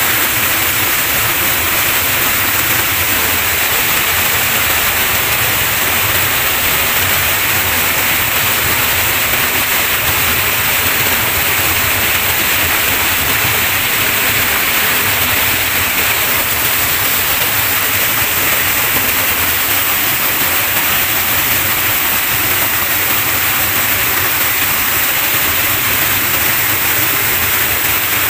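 Small waterfall pouring into a rock pool close by: a loud, steady rush of falling and churning water.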